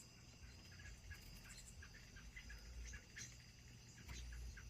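Near silence: faint insects chirping steadily in the background, with a couple of light clicks near the end.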